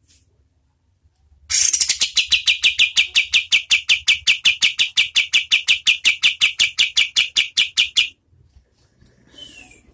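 Pied triller (kapas tembak) singing one long, fast rattle of evenly repeated notes, about six a second, for roughly six and a half seconds. A single short falling whistle follows near the end.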